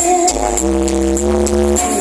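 Loud electronic dance music with heavy bass, played through a big outdoor sound system during a sound check.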